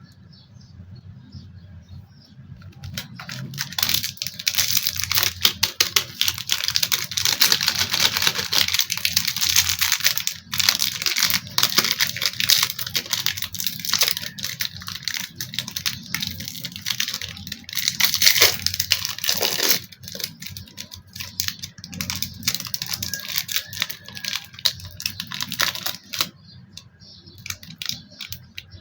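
Toy packaging being torn open and handled: dense crinkling, tearing and clicking that starts about three seconds in and eases off near the end.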